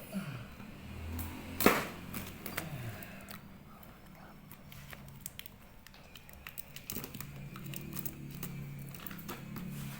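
Handling noises from unpacking a boxed pressure washer: scattered small clicks and rustles of cardboard and packaging, with one sharp knock about two seconds in.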